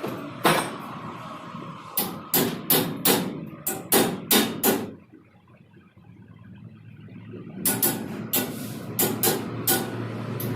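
Hammer blows striking steel in two runs of sharp strikes, roughly two a second. A pause of about two seconds falls midway, and a faint metallic ring hangs between the blows.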